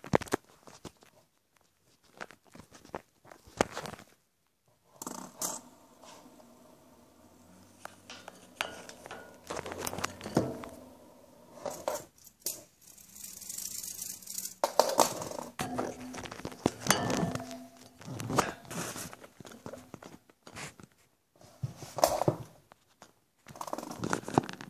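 Irregular clicks, knocks and scrapes of a plastic fidget spinner with metal bearings being handled, flicked and set down on a wooden floor, with hands rubbing near the microphone. Between them a faint steady hum comes and goes.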